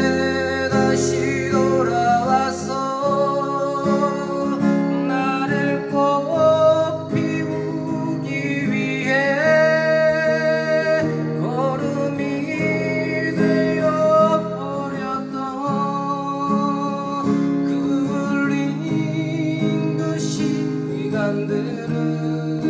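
Acoustic guitar strummed in a steady accompaniment, with a man singing over it.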